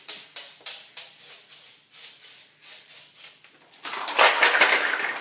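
A cockatoo's claws tapping on a laminate floor as it walks, about three taps a second. About four seconds in, a loud clatter of plastic stacking cups toppling over.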